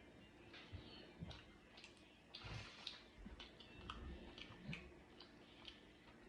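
Faint close-up chewing of a soft stuffed biscuit, with scattered small wet mouth clicks and smacks.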